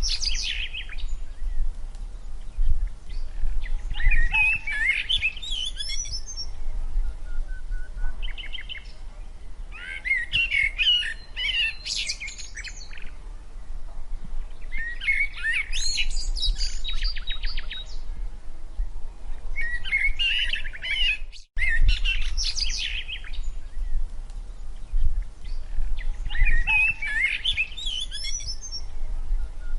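Birds chirping and singing in bursts of quick high notes every few seconds, over a steady low rumble. The sound cuts out briefly about two-thirds of the way through.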